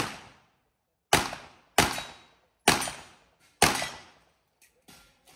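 Handgun shots: four loud shots less than a second apart, each with a short echo trailing off. Two faint clicks follow near the end.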